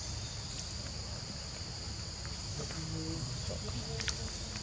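Steady high-pitched drone of forest insects, over a low rumble.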